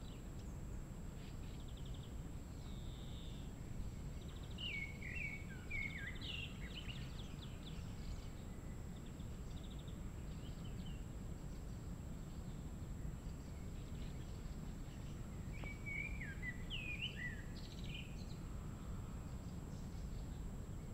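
Songbirds singing: two phrases of quick, warbled, falling notes, one about five seconds in and one about sixteen seconds in, with fainter short trills between. A steady low background rumble runs under the song.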